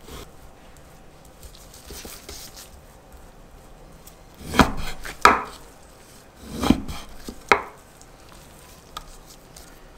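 Kitchen knife slicing through pork jowl and knocking on a wooden cutting board, four sharp cuts in the second half, with faint handling of the meat before them.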